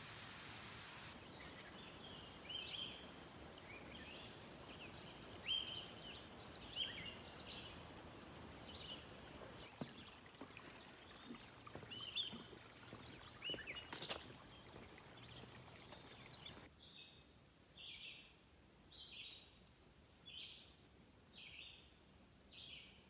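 Several songbirds chirping and singing faintly over a steady background hiss. After a cut, one bird repeats a short, high note roughly once a second. One sharp click partway through.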